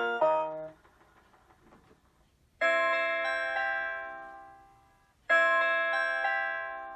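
Rhythm Small World Floral Fantasy Magic Motion wall clock (4MH663-R) playing its electronic melody: a few quick notes, a short pause, then two full chords about two and a half seconds apart, each ringing out and slowly fading.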